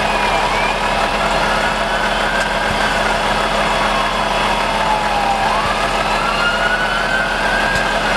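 Volvo tipper truck's diesel engine running steadily at idle as the truck creeps forward under remote control. A faint tone slowly rises and falls above it.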